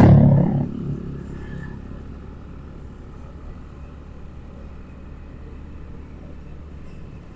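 A motor scooter running steadily at riding speed, with road and wind noise. A louder low sound at the very start fades away within the first second.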